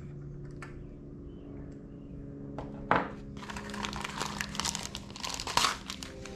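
Plastic zip bags of small parts and a paper sleeve crinkling as they are handled, with a sharp tap about three seconds in.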